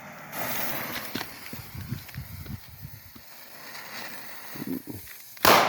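A hiss with scattered footsteps on the ground, then about five seconds in a single sharp, loud bang from a Midnight Buster firework, with a tail that dies away over a second or two.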